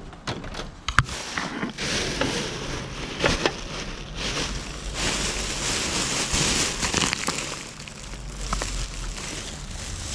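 Plastic trash bags rustling and crinkling as they are pulled and shifted, with several sharp knocks and clicks in the first few seconds.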